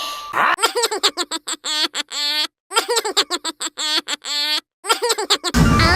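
Cartoon characters giggling: two runs of quick, rapid-fire giggles, each about two seconds long with a short gap between them. Music comes in just before the end.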